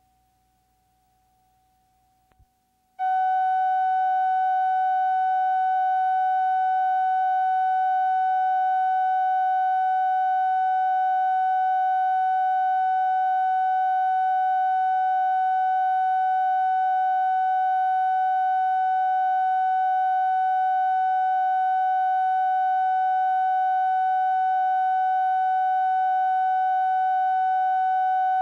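Steady reference test tone from a videotape's colour-bars-and-tone leader, starting suddenly about three seconds in after near silence and holding one unchanging pitch.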